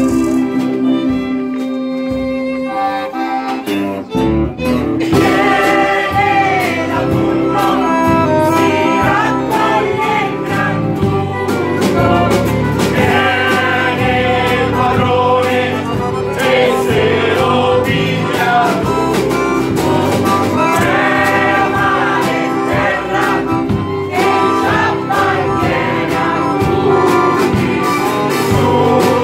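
Live folk music: a mixed choir singing with accordion, acoustic guitar and electric bass. The music drops briefly about four seconds in, then the singing and playing pick up again.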